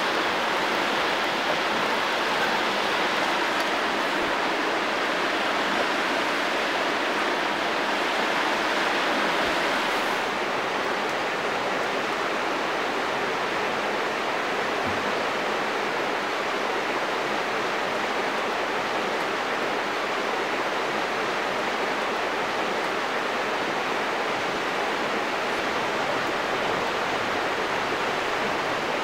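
Steady rushing of water, an even hiss with no distinct drops or splashes, easing slightly about ten seconds in.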